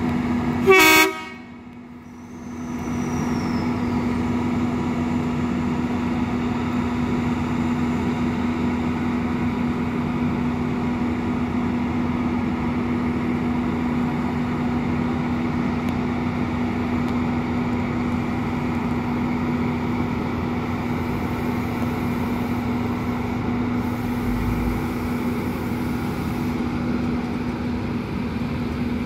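A single short blast of an NSW TrainLink Xplorer diesel railcar's horn about a second in, then its diesel engines running steadily with a low hum as the train sets off from the station.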